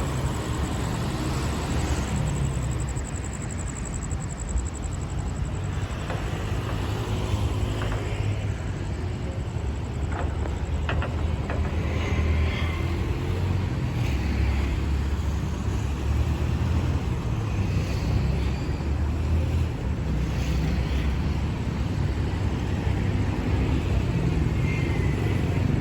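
Hitachi diesel-electric locomotive idling, a steady low rumble with no revving.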